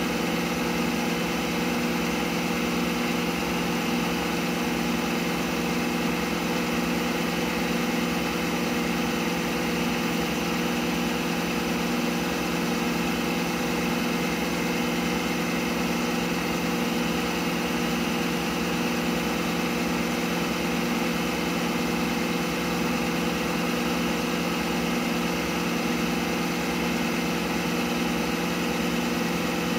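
CNC milling machine spindle running at a constant speed, turning a brass workpiece as a lathe spindle: a steady mechanical hum with several fixed tones.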